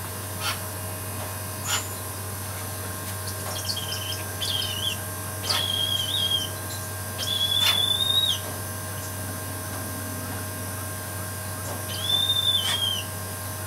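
Brahminy kite giving about five thin, high whistled calls, each under a second, some wavering or dropping at the end, the longest about halfway through. A steady low hum runs underneath.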